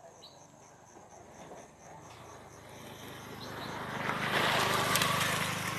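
A motor vehicle draws near, its engine and road noise swelling to a peak about four to five seconds in. Faint, regular insect chirping is heard before it.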